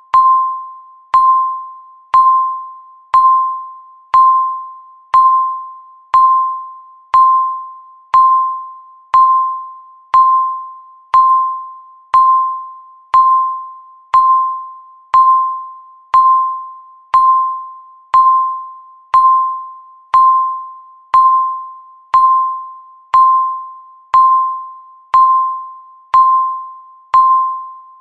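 Countdown timer beep: one short, clear electronic tone struck once every second and fading away after each strike, each beep marking one second left.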